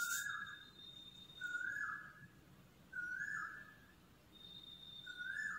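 An animal's short high call, rising then level, repeated about every second and a half.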